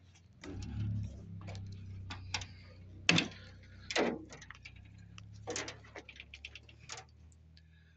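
Clicks and knocks of a metal truck cab door being unlatched and opened and someone climbing into the cab, with two louder knocks about three and four seconds in, over a low steady hum.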